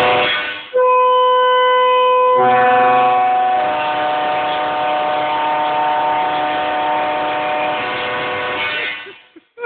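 Aftermarket multi-chime train air horn sounding. One blast cuts off just after the start, and a long sustained chord of several steady tones follows from about a second in. The chord shifts and thickens about two and a half seconds in, then fades out near the end.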